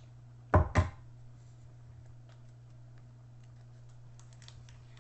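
Two quick, loud knocks about half a second in, then faint scattered clicks and ticks as the taped canvas packaging is handled on a table, over a steady low hum.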